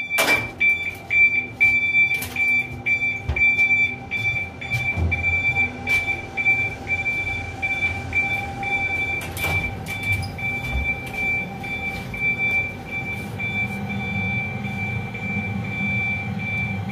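A WAG9 electric locomotive's fire detection alarm sounding a high-pitched pulsing beep, the signal that a smoke detector has tripped during a check of the unit, over the steady hum of the machine-room equipment. There are a few knocks in the first half, and the beeping stops at the very end.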